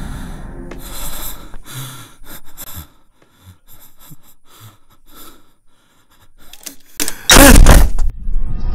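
Horror-film soundtrack: the music fades out into a quiet stretch with a few faint small sounds, then a sudden loud jump-scare hit about seven seconds in, running on into scary music.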